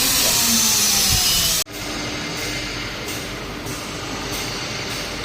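A CNC router's high-speed spindle running with a loud hiss, its tones falling in pitch as it slows. About a second and a half in, the sound cuts off abruptly and gives way to a quieter steady machine noise that pulses at a regular pace.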